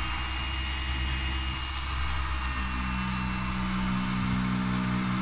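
Rupes Bigfoot mini random-orbital polisher running steadily with its microfiber pad on a plastic headlight lens, compounding it at a slow pass: an even motor hum.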